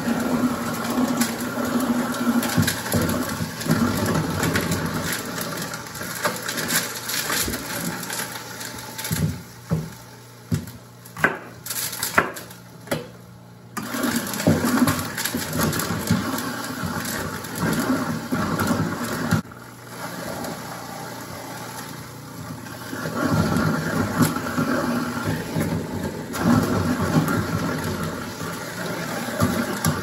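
Half-horsepower garbage disposal running with a steady motor hum, grinding whole apples forced down into it with a wooden plunger. The grinding eases off for a few seconds about ten seconds in, leaving the hum and a few sharp knocks, and again about twenty seconds in, then picks up again.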